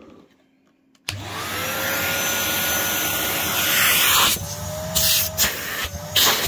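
Numatic NVQ 250 cylinder vacuum cleaner switched on about a second in, its motor spinning up with a briefly rising whine and then running steadily. From about four seconds in the rush of air surges and dips unevenly.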